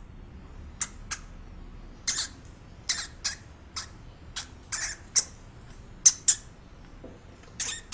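Hamster squeaking: a string of short, sharp, high-pitched squeaks at irregular intervals, some in quick pairs, with a brief lull before two more squeaks near the end.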